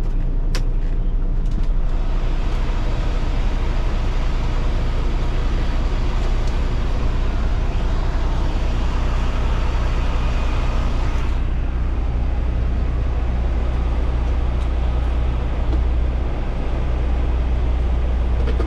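Semi-truck's diesel engine idling steadily, heard inside the cab, with a rush of air over it that drops away about eleven seconds in. A couple of sharp clicks near the start.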